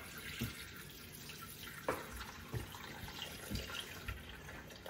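Water poured in a steady stream into a Thermomix's stainless-steel mixing bowl, with a light knock about two seconds in.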